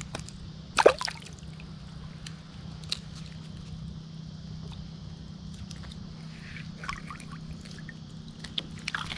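Shallow seawater sloshing and trickling, with a sharp knock about a second in and scattered small clicks, over a steady low hum.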